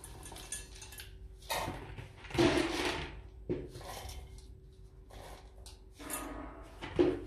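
Dry dog kibble poured from a plastic scoop into stainless steel bowls, rattling against the metal in several short bursts, the loudest about two and a half seconds in and a sharp clink near the end.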